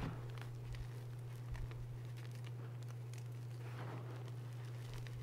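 Hands raking and squeezing crushed, reformed gym chalk, the hard glassy grit crunching and crackling in many small clicks, with a fuller grainy crunch about three and a half seconds in as a handful is pressed together. A steady low hum sits underneath.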